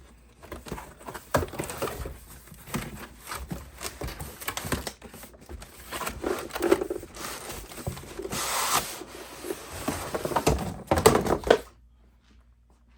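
Cardboard box and packaging being opened by hand and the charger lifted out: a busy run of rustles, knocks and scrapes, with a longer rasping stretch about eight seconds in. It stops about a second before the end.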